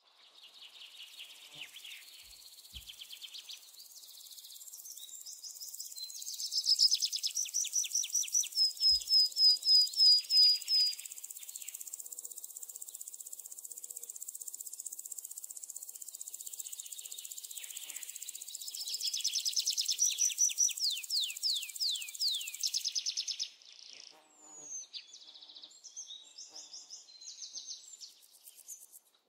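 Forest ambience of insects and birds: a steady high insect buzz with birds calling in repeated fast runs of short chirps, the loudest runs about a third and about two-thirds of the way in. The insect buzz cuts off suddenly near the end, leaving scattered softer calls.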